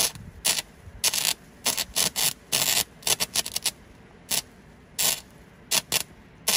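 A series of short, irregular scraping or crunching noises, about a dozen brief bursts of rough noise with short gaps between them.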